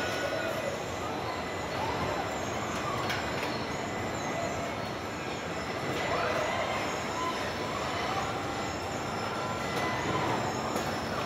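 Steady workshop background din of machinery and air noise, with faint voices in the background and a sharp click of a tool or part about three seconds in.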